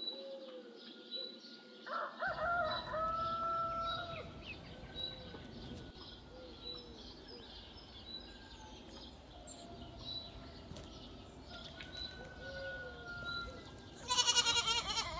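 Farmyard animal calls: a rooster crows about two seconds in, with softer short calls between, and a goat bleats loudly with a wavering pitch near the end.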